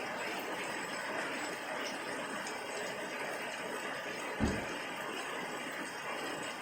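Steady white-noise hiss, even and unchanging, with a single short low thump about four and a half seconds in.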